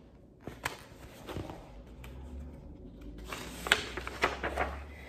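A paper picture book being handled and its pages turned: a few soft taps and clicks, then paper rustling and crinkling that gets busier from about three seconds in.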